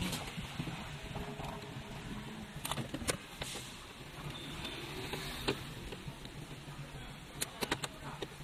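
Scattered light clicks and taps of a screwdriver and hands working the mounting screws and metal brackets of a car's dashboard head unit, with a quick run of clicks near the end, over a steady low hum.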